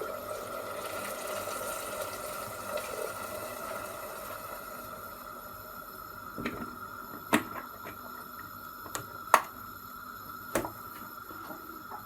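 Water poured into a cooking pot over the vegetables, trailing off after a few seconds, followed by several sharp knocks of kitchen utensils or the pot.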